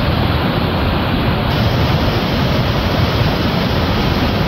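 Muddy floodwater of a stream in spate rushing hard through and over the piers of a bridge and weir, making a loud, steady rush of water.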